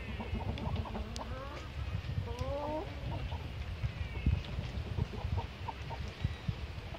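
Chickens clucking, with two longer, drawn-out calls in falling steps about a second in and again around two and a half seconds, over a low rumble.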